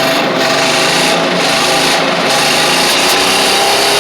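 Van engine held at high revs, its exhaust blasting out loud and harsh as debris is blown out of a clogged catalytic converter.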